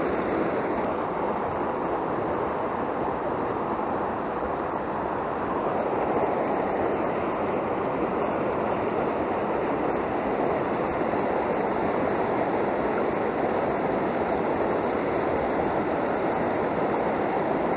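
Mountain river rushing over boulders through a small whitewater rapid: a steady, unbroken rush of water.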